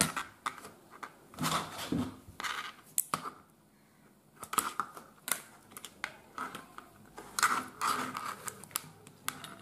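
Thin insulated copper wire being handled and rustled against a plastic switch board, with several sharp clicks as wire cutters snip a length of red wire.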